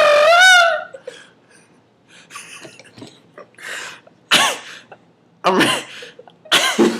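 A man's voice doing a made-up comic bird call: a loud wavering warble in the first second, then a string of short, rasping, cough-like bursts.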